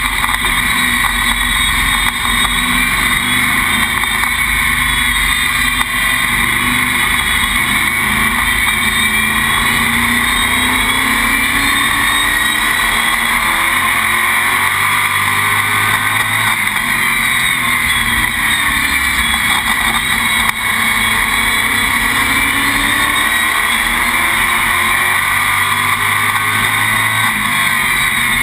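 Race car's engine running loud, heard from inside the cockpit, its revs rising and falling in long sweeps.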